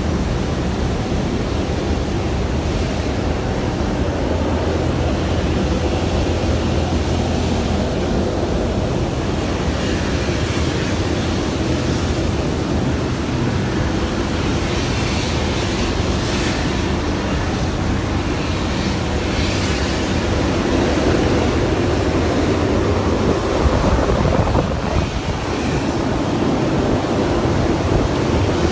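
Steady, loud roar of a ferronickel smelting furnace's tapping floor, with a low hum under it, as molten ferronickel is tapped from the furnace.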